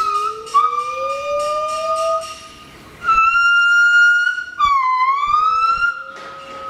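Gibbons singing: long, clear held notes from two overlapping voices, a high steady note over a lower one that slowly rises. About three seconds in a single loud held note starts, which dips and swoops back up about five seconds in.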